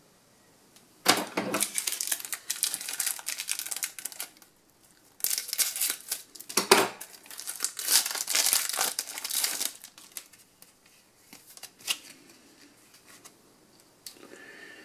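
Foil trading-card booster pack being torn open and crinkled by hand, in two long spells of crackling, followed by a few faint rustles and taps.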